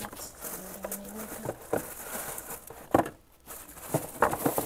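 Tissue paper rustling and a cardboard shoe box being handled, with scattered clicks and knocks, the sharpest about three seconds in.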